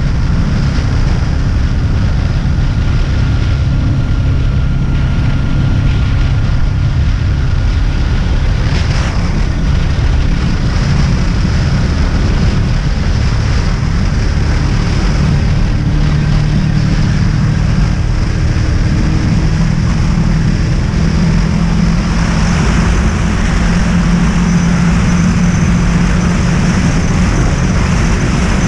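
Wind buffeting the microphone of a moving motorcycle, over the steady running of a Honda VFR800's V4 engine, its note climbing slightly about halfway through.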